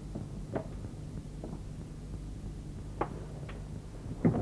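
Quiet room tone with a steady low hum, broken by a few faint clicks and a louder knock near the end as small objects are handled and set down on a wooden desk.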